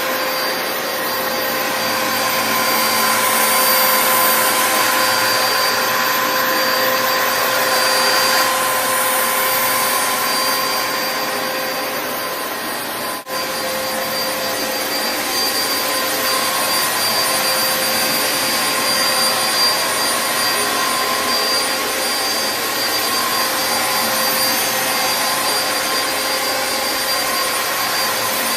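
Dyson DC07 Animal bagless upright vacuum cleaner running steadily: a constant motor whine over rushing airflow, with a momentary drop-out about 13 seconds in.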